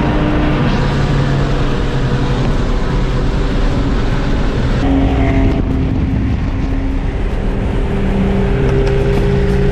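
Nissan GT-R R35 running at highway speed, its twin-turbo V6 and the road noise heard from inside the cabin, loud and steady.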